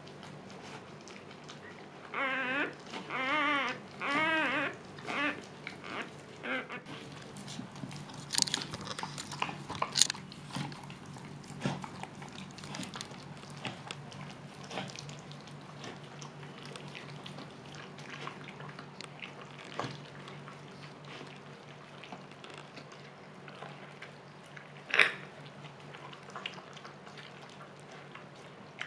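Husky mother licking a newborn puppy clean: wet, irregular licking and smacking with a few sharp clicks. A short run of about four wavering dog whimpers comes a couple of seconds in.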